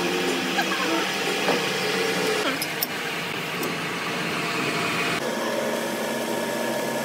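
Metal lathe running with a twist drill in the tailstock boring into a spinning steel workpiece: a steady machine whir with a cutting hiss. About five seconds in, the hiss suddenly becomes lighter.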